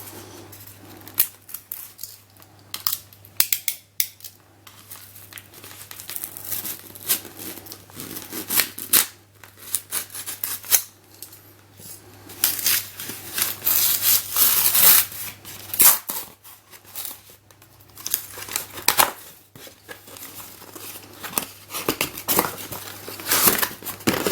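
A puzzle box's sealed label being cut through and its packaging opened: irregular snips and scrapes with crinkling and tearing.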